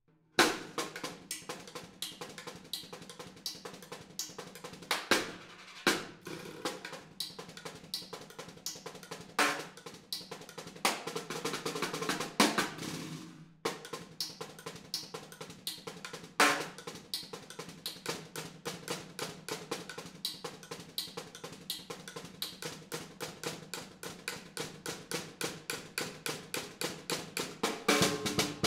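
Solo snare drum played in a fast passage of strokes and accents. About halfway through a roll swells and cuts off suddenly; then comes a run of evenly spaced accented strokes that grows louder near the end.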